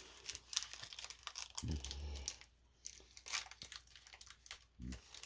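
Pokémon trading cards being flipped through by hand, one sliding off the front of the stack after another, giving irregular light papery flicks and rustles.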